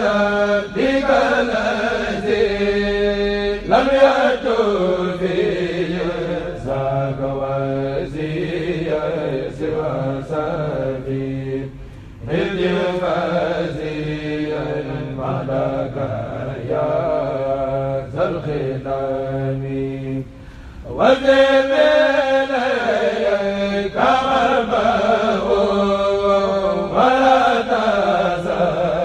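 Male voice chanting a Senegalese Mouride khassida unaccompanied through a microphone, in long drawn-out phrases with sliding pitch. Short breaks about 12 and 20 seconds in separate the phrases.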